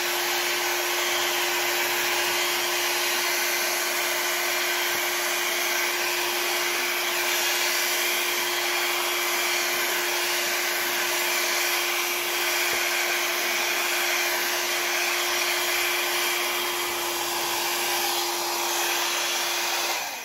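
Hair dryer blowing at a steady speed, a rush of air with a steady motor hum beneath it, pushing wet acrylic pour paint across small tiles to spread it and open up cells. It is switched off at the very end.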